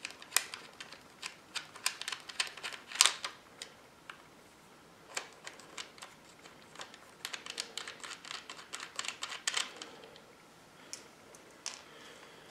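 Irregular clusters of small sharp clicks and light rattles of metal and hard plastic as the bar nut is undone and the plastic side cover of a small 25cc chainsaw is worked loose by hand. There is a quieter pause in the middle.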